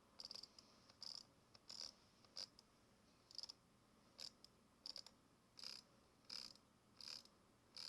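Glorious Model O gaming mouse buttons being clicked, faintly, about once every three-quarters of a second, each click a short press-and-release.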